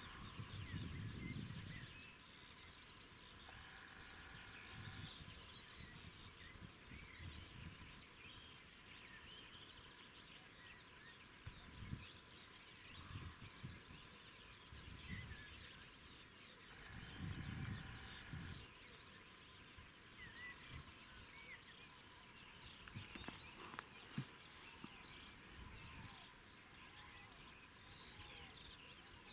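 Faint songbird chorus, many small chirps and twitters overlapping throughout, with now and then a low rumble of wind on the microphone.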